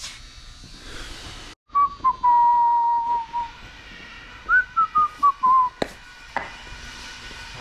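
A person whistling: one held note, then a short run of notes stepping down in pitch.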